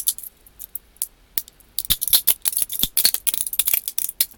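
3D-printed plastic support material being pried and snapped away from a printed part: scattered sharp cracks and clicks that become a dense crackling run about two seconds in.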